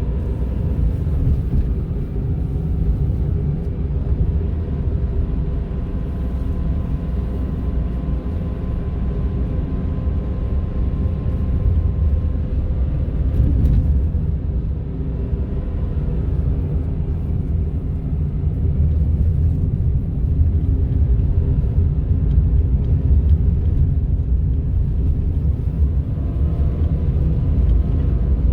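Cabin sound of a Honda N-ONE's 660 cc three-cylinder kei car on the road: a steady low rumble of road and engine noise, with a thin whine above it that shifts pitch now and then. This is the kind of odd motor-like noise the owner cannot explain on the high-mileage car and suspects is a fault.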